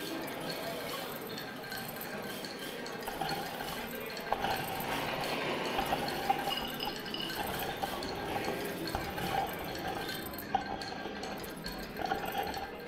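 Improvised live sound-making with miked found objects: glassy clinks and small clicks over a trickling, liquid-like rustle, with a few faint steady high tones running underneath.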